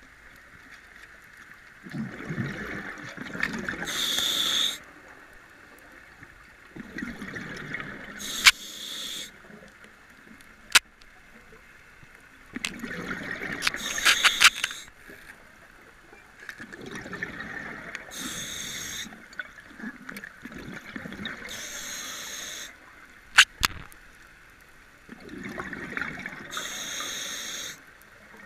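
Scuba regulator breathing underwater: each breath is a rumbling, gurgling rush of exhaled bubbles and a short hiss, repeating about every four to five seconds. A few sharp clicks fall between the breaths.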